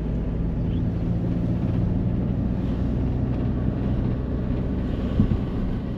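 Camper van engine and road noise while driving: a steady low drone, with a single short knock about five seconds in.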